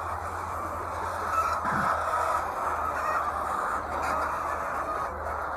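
A large flock of laying hens clucking and calling together in a continuous, overlapping din, over a low steady hum.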